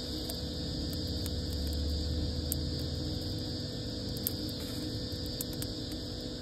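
Small kindling fire burning in an outdoor fireplace: scattered faint crackles over a steady low rumble that swells briefly about two seconds in.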